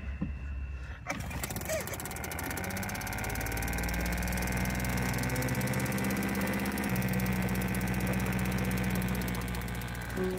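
A canoe's outboard motor catching about a second in, its pitch rising as it picks up, then running steadily.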